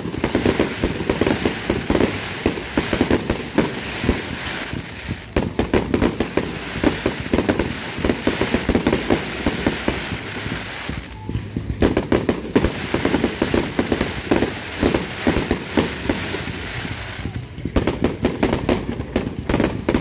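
Aerial fireworks bursting overhead in a dense, continuous run of pops, bangs and crackle, with a few brief lulls between volleys.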